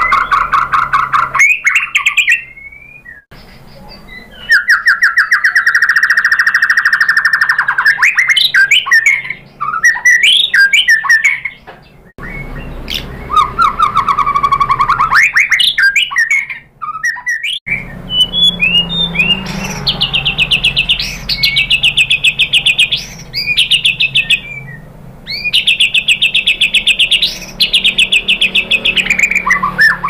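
White-rumped shama (murai batu) singing loudly: phrases of rapid, fast-repeated trilled notes, some low and some high-pitched, each lasting a second or a few seconds, with short breaks between.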